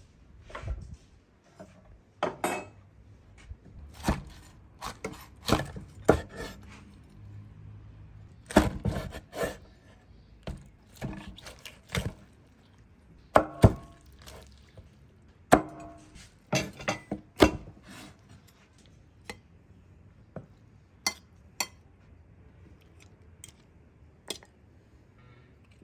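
Irregular clinks and knocks of dishes and cutlery being handled, thicker in the first two thirds and sparser toward the end.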